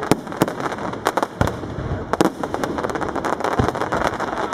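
Aerial fireworks display: many shell bursts going off in quick, irregular succession over a continuous crackle of bursting stars.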